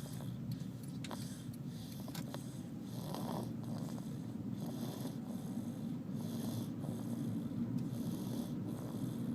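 Continuous snoring: a steady low rattling rumble, with a soft breathy hiss pulsing over it in repeated spells.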